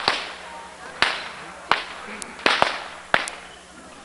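Firecrackers going off: about six sharp cracks at uneven intervals, each with a brief echoing tail.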